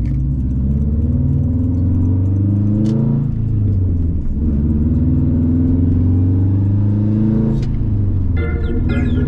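Car engine accelerating hard. Its pitch climbs, then drops sharply at a gear change about three seconds in, and climbs again to a second shift near the end. Music comes in over it in the last second.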